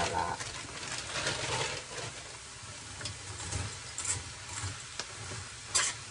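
Frozen string beans tumbling from a bag into a stainless steel Saladmaster electric skillet, then a metal spoon stirring and scraping them around the pan. There is a sharp clink of spoon on steel near the end.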